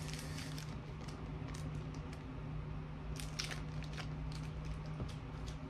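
A person biting into and chewing a Snickers Pecan candy bar, with scattered short crunching clicks, over a steady low hum.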